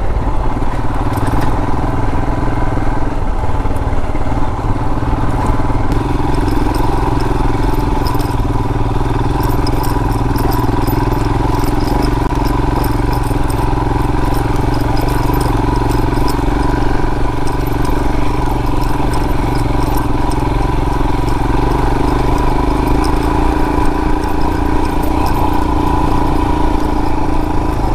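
Royal Enfield Himalayan's single-cylinder engine running steadily as the motorcycle is ridden along a dirt trail, with light ticks and rattles over it.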